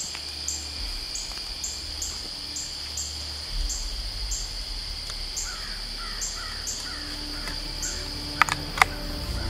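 Steady dawn chorus of crickets and katydids, with an evenly repeating chirp over a continuous high drone. A bird calls in a quick run of short falling calls about five to seven seconds in. Near the end come two sharp clicks, the loudest sounds, from the single-shot .410 break-action shotgun being worked.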